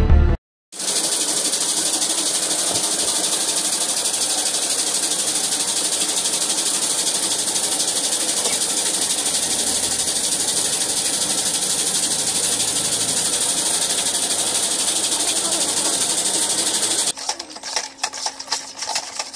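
Intro music cuts off, then a loud, steady whirring hiss from an unseen machine runs on without change. Near the end it gives way to a wire whisk clicking and scraping quickly against a plastic basin.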